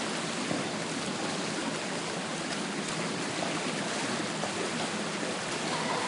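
Swimmers splashing as they swim front crawl in an indoor pool, a steady wash of water noise.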